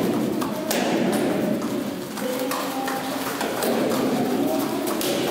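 Scattered taps and thuds at irregular intervals, with indistinct voices in the background.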